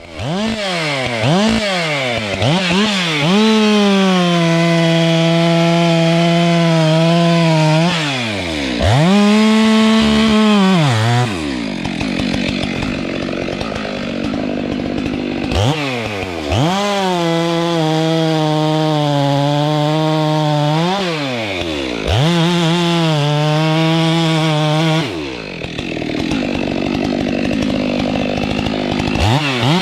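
Stihl MS 462 two-stroke chainsaw revved up and held at high revs for several seconds at a time, likely cutting, then dropping back toward idle before revving again, several times over.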